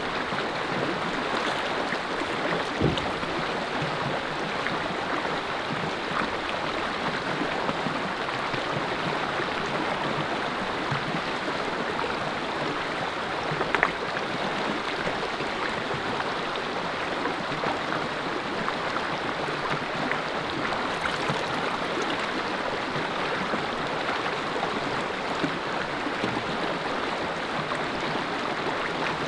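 Steady rush of a shallow, rocky river flowing, with a couple of brief soft knocks, one about three seconds in and one about fourteen seconds in.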